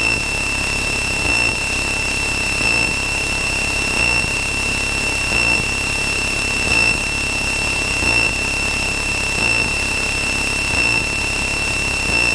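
Cabin noise of a Cessna 162 Skycatcher in flight: the Continental O-200 engine and propeller running steadily, with a constant high-pitched whine over it. The noise swells slightly in a regular pulse about every second and a half.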